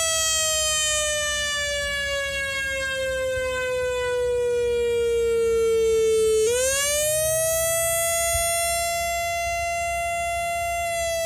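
Whelen WS-3000 electronic outdoor warning siren sounding: a single tone that slides slowly down in pitch, sweeps quickly back up about six and a half seconds in, holds, and starts falling again near the end.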